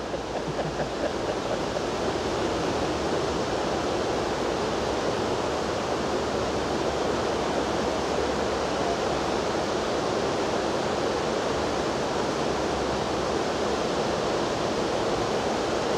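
Fast-flowing river water rushing steadily over shallow broken rapids.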